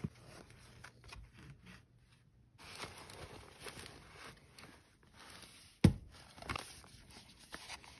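Packaging and soft fabric being handled and rustled during an unboxing, with a sharp knock a little before six seconds in and a smaller one just after.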